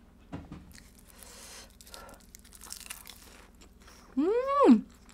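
Mouth-close chewing of a bite of spicy marinated raw blue crab wrapped in roasted seaweed, with faint crisp crunching and crinkling. Near the end comes a loud hummed "mmm" that rises and then falls in pitch.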